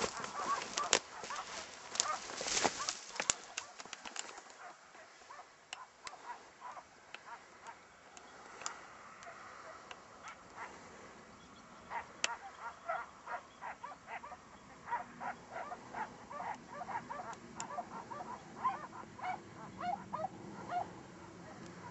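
A pack of scent hounds giving tongue on a hare trail: many short, high yelping bays, faint and overlapping, coming thicker in the second half. A few sharp knocks and rustles in the first few seconds.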